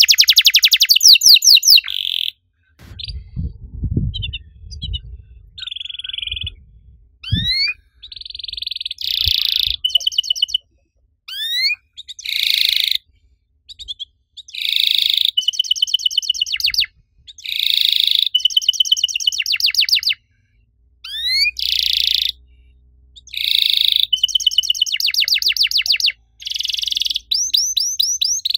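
Domestic canary singing: phrases of rapid, high chirping trills a second or two long, separated by short pauses, with a few quick rising whistled notes between them.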